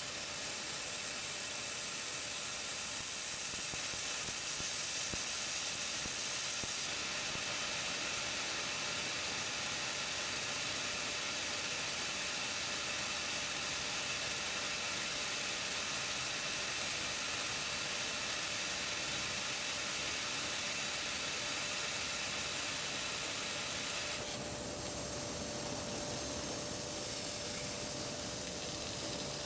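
8 kW laser cutting machine cutting 25 mm carbon steel: a steady hiss of the assist-gas jet and cut, with a faint steady hum. The hiss is brighter for the first few seconds and its tone shifts about 24 seconds in.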